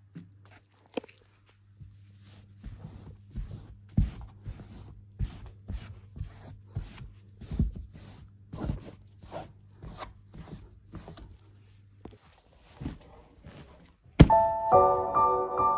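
A run of irregular light knocks and clatters, two or three a second, over a steady low hum. Soft piano music comes in near the end.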